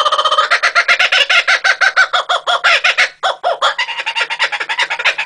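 Laughing kookaburra calling: a fast, unbroken run of short harsh notes, with a brief break about three seconds in before the laughing carries on.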